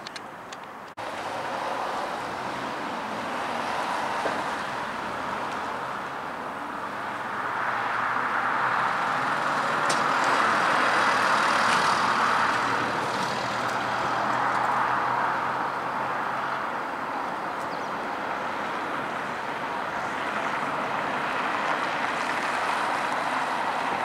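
Road traffic: a steady rush of passing vehicles that starts abruptly about a second in and swells to its loudest around the middle, with a low engine hum underneath that stops about two-thirds of the way through.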